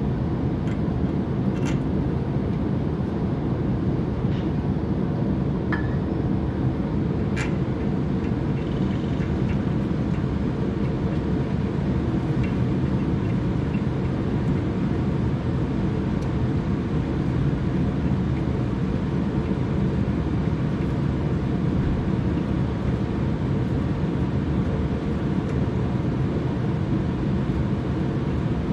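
Steady machine noise, a low hum that does not change, with a few sharp metallic clicks in the first several seconds.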